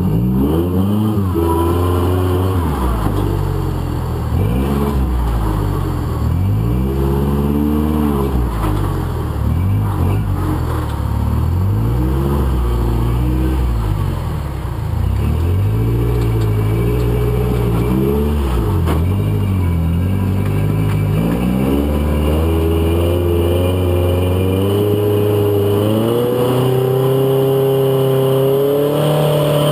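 Rock-crawler buggy's engine revving up and down in repeated throttle bursts as it works over the boulders, then held at higher revs for the last several seconds.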